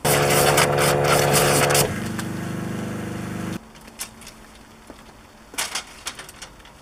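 Pressure washer running: a loud hissing spray over a steady motor hum, then about two seconds in the spray stops and the motor hums on at a different note until it cuts off suddenly, followed by a few faint clicks.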